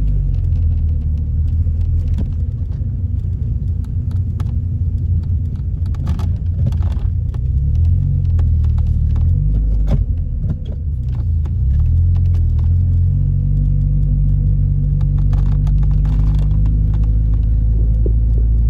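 Car driving, with a steady low rumble of engine and road. The engine note shifts, then settles into a steadier, slightly higher drone about twelve seconds in, with a few light knocks along the way.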